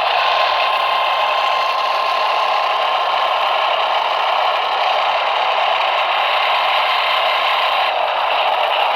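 NOAA Weather Radio's 1050 Hz warning alarm tone: a single steady tone held for about eight seconds, then cut off, heard faintly under loud radio static from weak reception.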